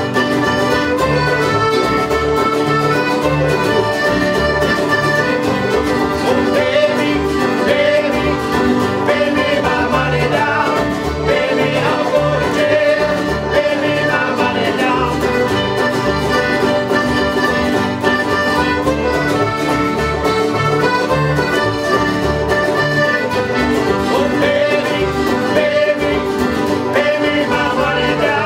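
Acoustic folk band playing an instrumental passage with no singing: sustained chords over a steady beat.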